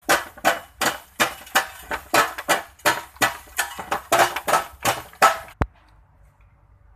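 Two hand hammers striking in turn on wire fence mesh laid over bamboo poles, a quick steady rhythm of sharp knocks, nearly three a second. The knocking stops abruptly with a click about five and a half seconds in.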